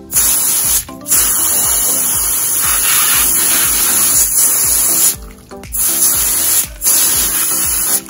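Garden-hose spray nozzle blasting a jet of water onto a pond pump's filter mesh and sponge to rinse it clean: a loud, steady hiss that stops briefly about a second in, again around five seconds in, and once more near seven seconds.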